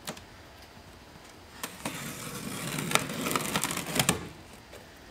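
Packing tape being peeled and a cardboard box flap pulled open, a rough tearing rustle lasting a couple of seconds with a few sharp snaps, starting about a second and a half in.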